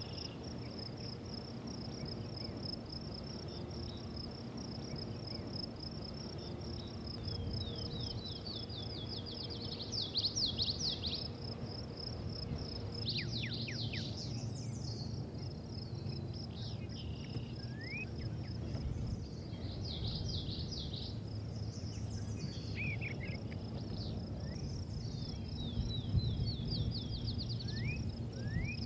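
Outdoor ambience: an insect trilling continuously at a high pitch, with bird chirps and short trilled calls scattered over it, above a low steady rumble.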